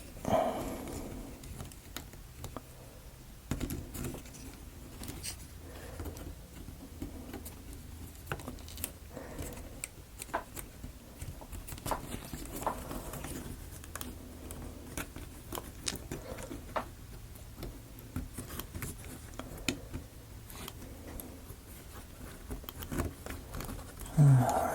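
Wooden model-kit parts being handled and fitted together by hand: scattered small clicks, taps and scrapes of wood pieces at irregular intervals.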